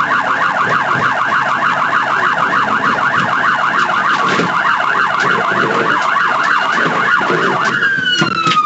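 Police car siren sounding a fast, rising-and-falling yelp. Near the end it changes to one long falling glide as the siren winds down.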